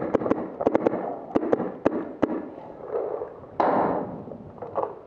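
Empire Axe electronic paintball marker firing about ten sharp pops in quick strings over the first two seconds or so. A louder rush of noise follows about three and a half seconds in.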